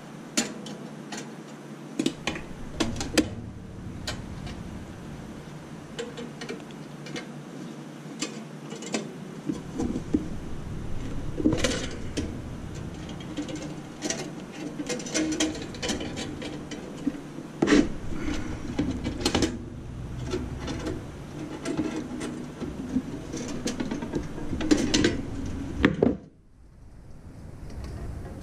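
Pliers gripping and pulling thin nichrome wire taut across a metal ice-maker cutting grid: irregular metallic clicks and ticks over scraping and rubbing, the wire being tensioned by hand.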